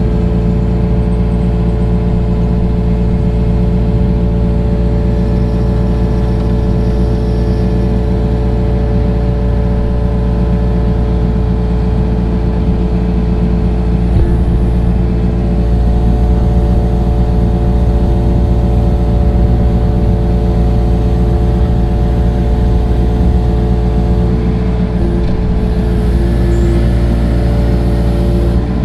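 Heavy equipment engine running steadily at an unchanging speed, loud and close, with a constant hum of engine tones; a slightly higher tone joins about halfway through.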